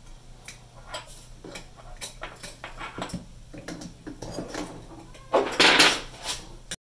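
Light metallic clicks and clinks of small parts and tools being handled on a workbench, with a louder scraping rustle about five and a half seconds in. The sound stops abruptly just before the end.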